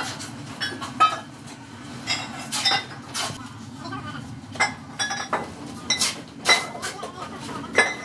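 Fired ceramic pieces clinking and knocking together at irregular intervals, many strikes carrying a short bright ring, over a steady low hum.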